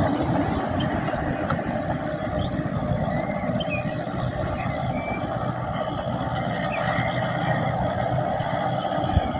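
Schlei ferry Missunde II's engine running steadily, a continuous low mechanical hum.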